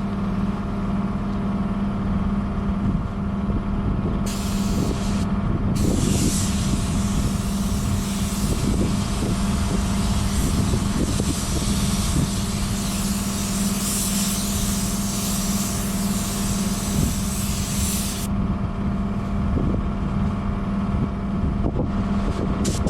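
Paint spray gun hissing as colour is sprayed: a short burst about four seconds in, then a long pass of about twelve seconds, and a brief burst near the end. Underneath, a steady mechanical hum.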